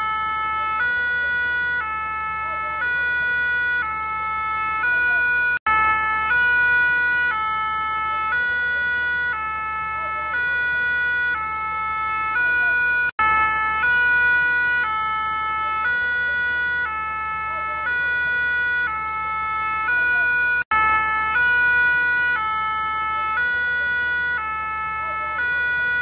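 Two-tone emergency-vehicle siren, alternating steadily between a high and a low note, each held for just under a second. It cuts out briefly three times, about seven and a half seconds apart.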